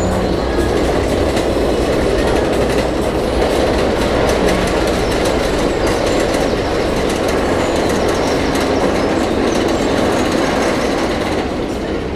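Untamed, a Rocky Mountain Construction hybrid roller coaster, at speed: the train's wheels rumbling and clattering along the track, a loud, steady rush with some wheel squeal.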